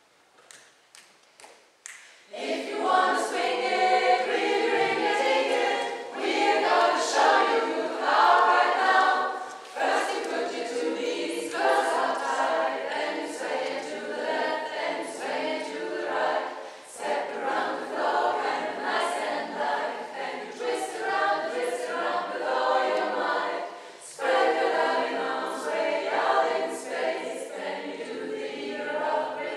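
Women's choir singing a cappella in phrases with short breaks, starting about two seconds in after a few sharp clicks.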